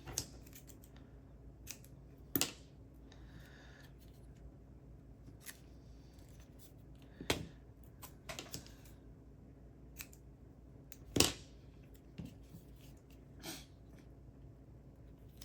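Adhesive tape being cut and worked onto a laptop fan's cover: about six sharp snips and clicks spread out, the loudest about 11 seconds in, over a faint steady hum.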